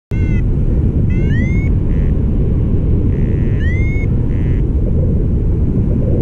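Wind rushing over the microphone in paragliding flight, a steady low rumble that drops out for an instant at the start. Three short rising chirps sound above it, and a few faint steady beeps.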